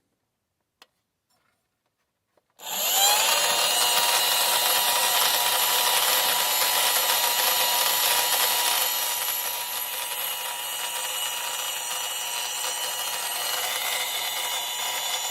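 The floating-astronaut toy's small electric fan switching on about two and a half seconds in, spinning up with a brief rising whine, then running steadily with a high-pitched whir and rushing air that lifts the astronaut in its vortex.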